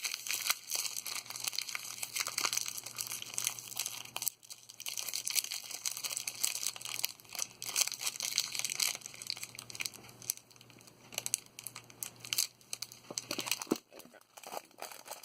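Packing tape and a cardboard mailing box being pulled and torn open by hand, with irregular crinkling and tearing of the packaging; the tape stretches rather than tearing cleanly.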